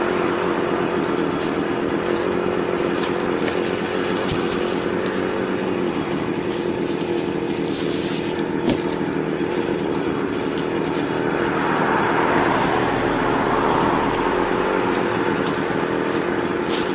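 Small two-stroke chainsaw engine idling steadily, just after a repair of fuel lines, fuel filter, spark plug and air filter, with its idle still to be adjusted. Dry leaves crunch underfoot, and cut logs knock now and then.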